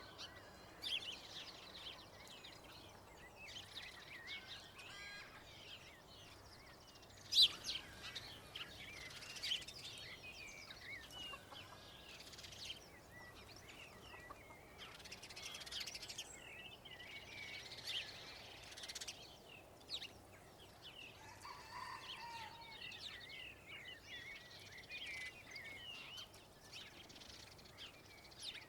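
Faint birdsong: several small birds chirping and trilling with many quick, high calls, and one sharp, louder click about seven seconds in.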